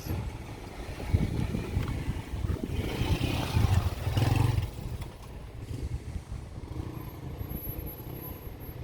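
Motor vehicle engine rumbling, swelling louder for a moment about three to four and a half seconds in, then settling back to a lower rumble.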